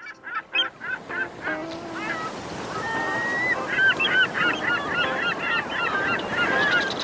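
Gulls calling: a quick run of short, repeated calls at the start, then many overlapping calls, over a steady background hiss.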